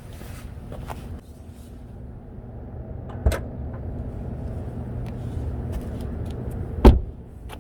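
Tesla Model 3 trunk latch releasing and the lid popping up to its unassisted stop: two sharp knocks about three and a half seconds apart, the second louder, over a steady low hum.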